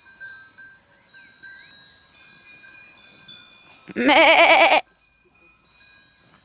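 A sheep bleats loudly once, about four seconds in: a single quavering call just under a second long. Faint steady ringing tones and a few bird chirps lie underneath.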